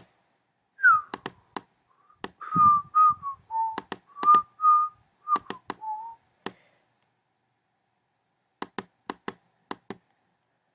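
A person whistling a few short wavering notes while clicking on a computer. There are sharp clicks throughout, and a few more clicks come after the whistling stops, a little past the middle.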